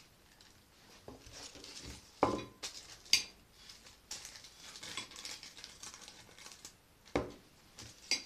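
Kitchen clatter of dishes and utensils being handled, with sharp knocks about two, three and seven seconds in.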